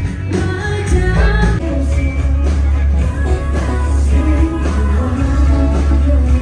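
Live rock band with a singer rehearsing a song at a soundcheck, amplified through a hall's PA: a heavy sustained bass comes in about a second and a half in under the sung melody.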